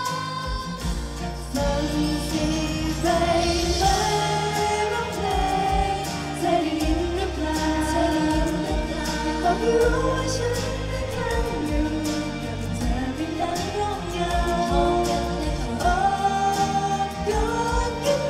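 Thai idol-pop girl group singing live into handheld microphones over a pop backing track through the stage PA, with a steady beat; the bass and drums come in about a second in.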